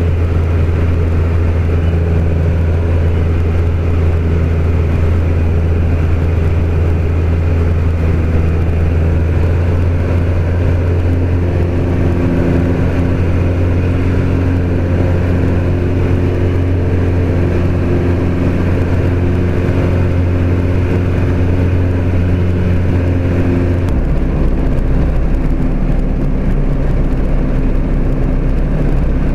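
Jabiru light aircraft's engine and propeller, a steady drone heard inside the cockpit in flight. Near the end the pitch drops as power comes back for the approach to the runway.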